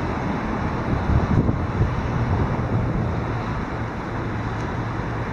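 Wind rumbling on the microphone over a steady outdoor hiss, with a few heavier gusts about a second in.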